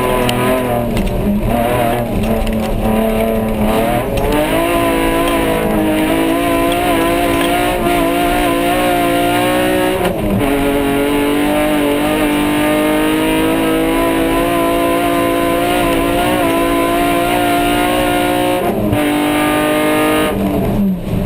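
Off-road race car's engine heard from inside the cabin, running hard under load, its note jumping in pitch about 4, 10 and 19 seconds in as gears are changed.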